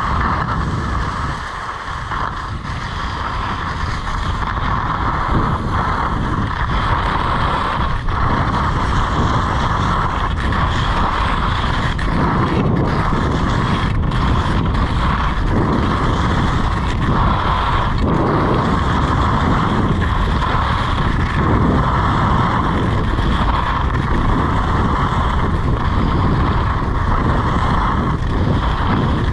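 Wind rushing over an action camera's microphone, with skis sliding on a groomed piste, as a skier runs downhill. It builds over the first few seconds as speed picks up, then holds as a steady rush.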